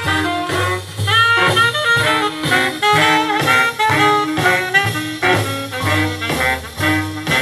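Swing-style jazz with saxophone and brass over a steady bass line, played from a vinyl record on a vintage Elac Miracord 50H II turntable.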